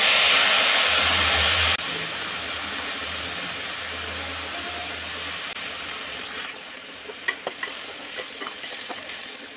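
Milk poured onto hot rice in an aluminium pressure cooker sizzles loudly for about two seconds, then settles into a quieter, steady sizzle that fades. From about seven seconds in, a wooden spatula scrapes and clicks against the pot as the rice is stirred.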